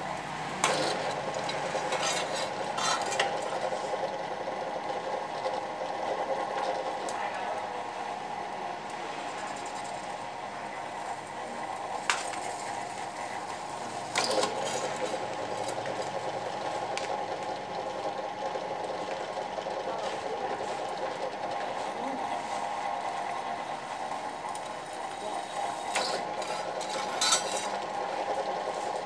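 A workshop machine running with a steady whir while a hand-held metal tool works against a metal disc, with a few sharp metallic clicks.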